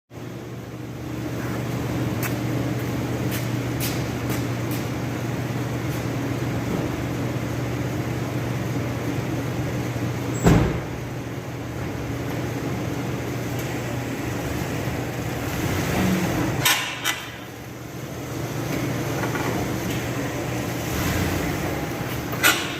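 A 1998 Ford Ranger XLT running with a steady low hum, broken by sharp clunks: a loud one about ten seconds in, a pair about six seconds later and another near the end, with a few lighter clicks early on. The clunking is the fault being shown, its cause not given.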